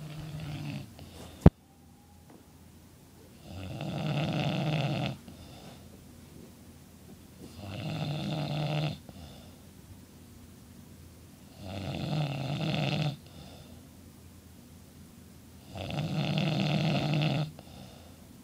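A man snoring loud: four long snores about every four seconds, each followed by a brief, softer breath sound. A single sharp click comes about a second and a half in, before the first full snore.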